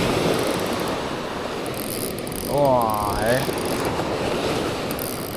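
Fishing reel being cranked, its gears clicking steadily, as a fish is wound in. A steady wash of surf runs underneath, and a drawn-out excited shout rises and falls about two and a half seconds in.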